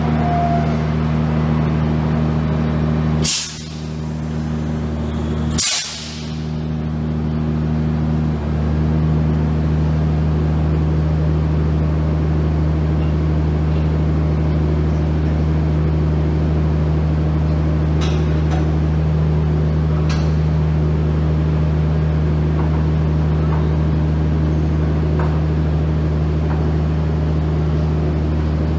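Renfe class 252 electric locomotive standing at the platform with its equipment running: a steady deep hum made of several low tones. Two short sharp bursts come about three and six seconds in, each followed by a brief dip in the hum.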